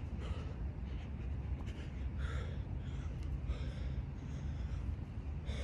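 Wind buffeting the microphone with a steady low rumble. Over it come a man's hard breaths, a few sharp exhales from the effort of burpees.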